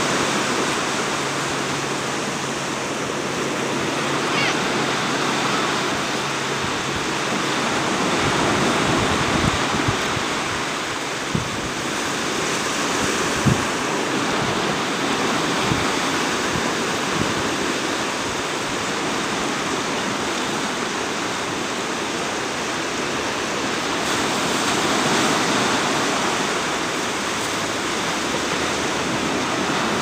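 Ocean surf washing on a beach: a steady rush of water that slowly swells and eases. A few brief knocks sound in the middle.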